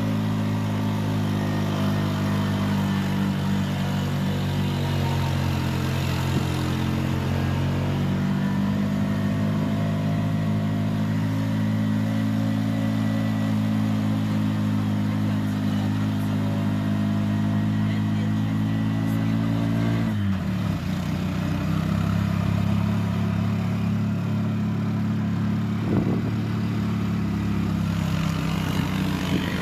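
Bus engine running while driving, heard from inside the bus. Its note holds steady, drops sharply about twenty seconds in, and carries on lower.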